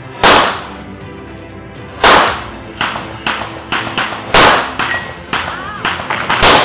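9mm semi-automatic pistol fired four times at a slow, steady pace, about two seconds between shots, each a loud sharp crack, with fainter sharp cracks in between.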